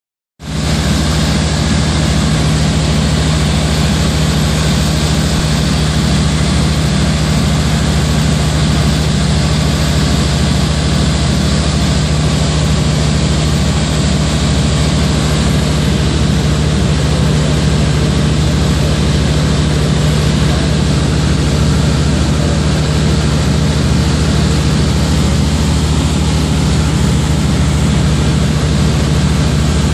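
Engine and propeller of a light high-wing propeller airplane droning steadily in cruise, heard from inside the cabin with a rush of airflow over it.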